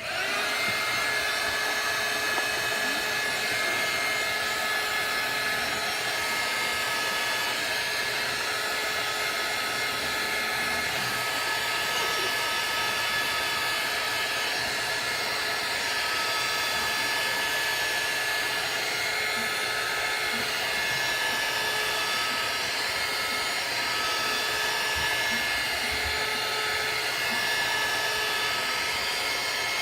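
Heat gun switched on and blowing steadily: a rush of hot air with a faint steady motor whine, heating an iPhone screen to soften its adhesive.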